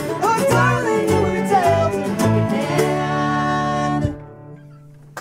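Acoustic string band of guitar, fiddle, cello, electric bass and mandolin playing the final bars of a folk song, ending on a held chord that stops about four seconds in, leaving a faint ringing.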